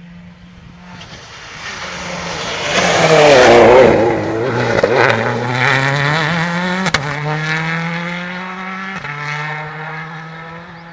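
Rally car passing at speed on a stage: its engine note grows loud, peaks about three to four seconds in and drops in pitch as it goes by. It then climbs again as the car accelerates away, with a sharp pop about seven seconds in and a gear change shortly before nine seconds, fading off.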